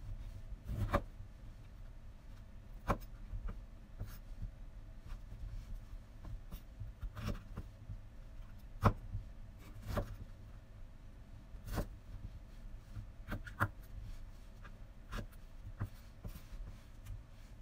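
Kitchen knife cutting cauliflower florets on a wooden cutting board: irregular knocks of the blade on the board, about a second or two apart, with fainter small clicks between.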